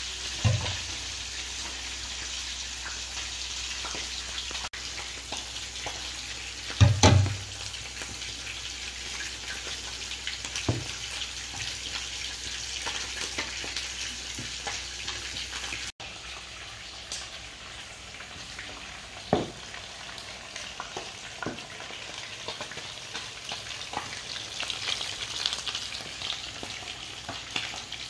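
Fish frying in hot oil in a pan: a steady sizzle, broken by a few short knocks, the loudest about seven seconds in.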